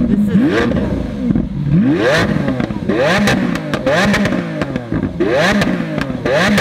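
Lamborghini Aventador's V12 being revved repeatedly while parked, short blips of rising pitch about once a second that fall back between them.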